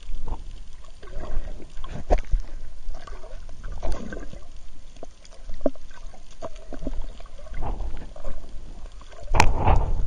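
Underwater sound picked up by a camera held below the surface: a muffled, irregular rumble of moving water with scattered sharp knocks, the loudest near the end.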